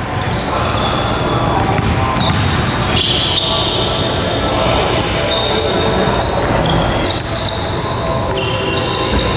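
Basketballs dribbling on a gym's hardwood floor, with many short, high sneaker squeaks. The sound carries the echo of a large hall.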